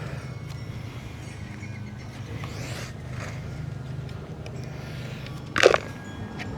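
Digging in garden soil: faint scrapes and ticks of dirt being worked, then one loud, short, sharp strike about five and a half seconds in, like a shovel hitting a rock.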